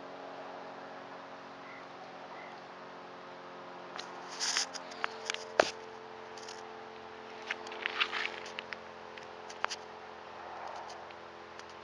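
Light footsteps and scuffs on a gravel road with small clicks from leash and camera handling, scattered and loudest about five and a half seconds in, over a faint steady hum.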